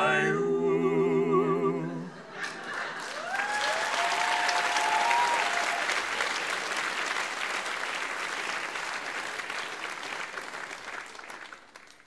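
An a cappella group of male voices holds a final sung chord for about two seconds, then an audience claps and cheers, with a few rising whoops early in the applause. The applause gradually dies away near the end.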